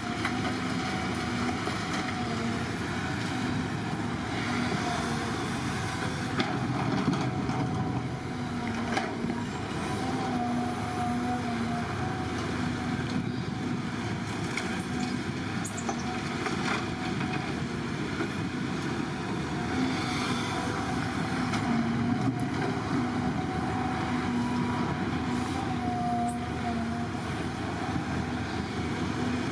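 Heavy diesel construction machinery, most likely an excavator, running steadily, with an engine hum that rises and falls and a few faint knocks.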